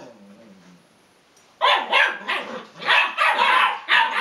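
Small dog barking in a rapid run of short barks, about three a second, starting about a second and a half in after a brief quiet.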